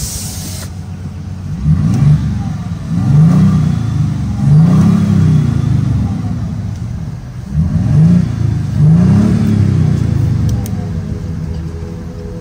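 2023 Toyota Sequoia TRD Pro's twin-turbo V6 hybrid engine revved in park, in short blips that rise and fall in pitch: three, a pause, then two more.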